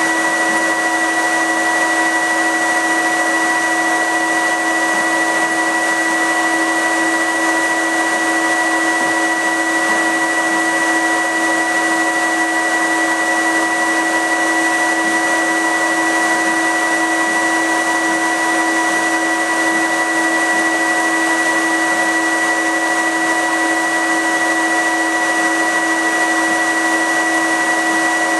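Fume filter unit of a CO2 laser cutter running: a really loud, steady rush of air with several steady whining tones, the highest the strongest.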